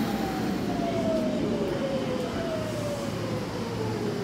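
Electric commuter train slowing into the station: its traction motor whine falls steadily in pitch as it brakes, over the rumble of wheels on rail.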